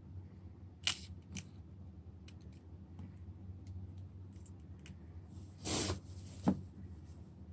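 A few light clicks and taps from handling small tools and phone parts, with a brief rustle or scrape about two thirds of the way in, over a steady low electrical hum.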